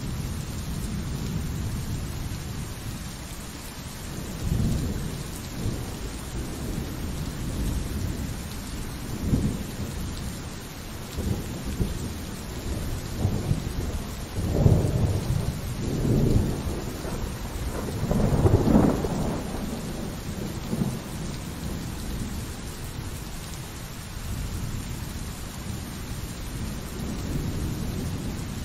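Steady rain with rolling thunder: low rumbles swell several times over the rain, loudest in the middle.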